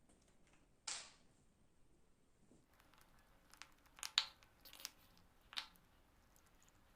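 Faint rustling and crinkling of packaging as a second toothpaste tube and its cardboard carton are handled and opened. There is a sharp rustle about a second in and a run of crackles a few seconds later.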